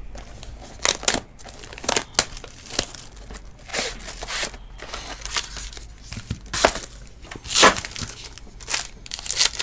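A sealed Panini Origins football hobby box being unwrapped and opened, and the foil card pack inside crinkling in the hands as it is worked open: a run of irregular crinkles and tearing rustles.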